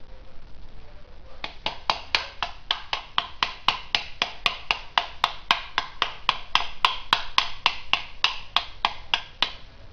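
A steady run of sharp, evenly spaced clicks, about four a second, starting about a second and a half in and stopping just before the end.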